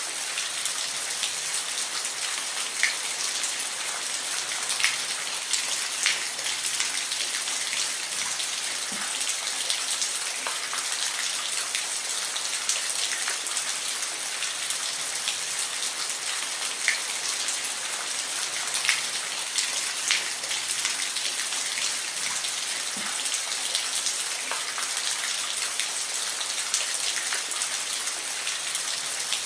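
Steady rain falling, a dense even hiss with scattered louder drops ticking on a surface.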